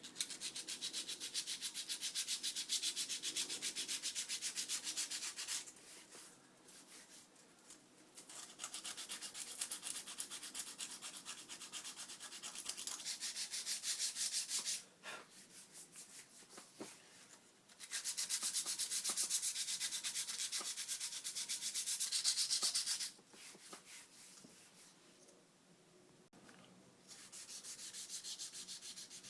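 80-grit sandpaper sanding dried body filler flat on an aluminium alloy wheel: a steady rasping scrape in four spells, with short pauses between them.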